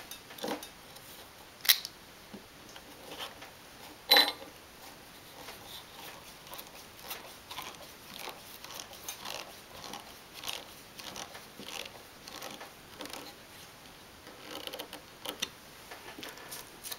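Hand screwdriver driving a small pan-head sheet-metal screw through an aluminum wheel bracket into wood: faint repeated ticks and scrapes as the screw turns, with two sharper clicks in the first few seconds.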